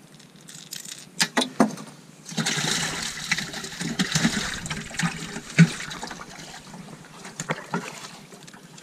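Water splashing in a boat's livewell as a speckled trout is dropped in and thrashes, with a few knocks before it and a sharp thump about halfway through.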